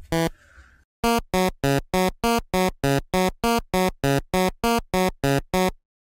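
Chiptune-style electronic music: a run of short, evenly spaced synthesized notes, about three a second, stepping between two or three pitches. It breaks off briefly about half a second in, resumes at one second, and stops just before the end.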